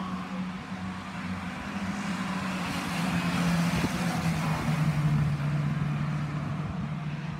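Stock car engines running as the cars lap an oval track, louder from about three seconds in as one passes close, its engine note dropping lower about four and a half seconds in.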